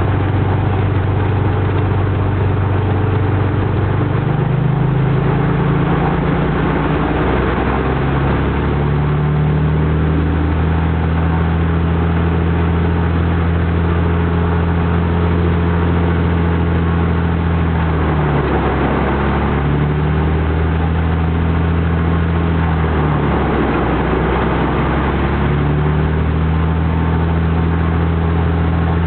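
Cessna 210's six-cylinder piston aircraft engine running at high run-up power, its pitch stepping up about four seconds in. Twice, later on, the engine speed dips briefly and recovers, as it does when each magneto is switched off in turn during a mag drop check.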